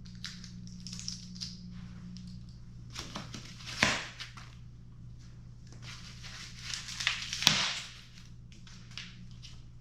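Plastic protective packaging being handled and pulled off, irregular crinkling and rustling with two louder sharp crackles, about four seconds in and about seven and a half seconds in.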